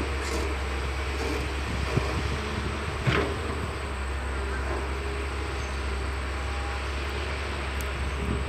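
Caterpillar 320CL long-arm excavator's diesel engine running steadily, with a sharp knock about two seconds in and another, louder one about a second later.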